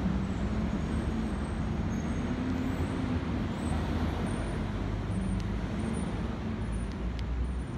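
Steady city street traffic noise with a low engine hum that swells and fades.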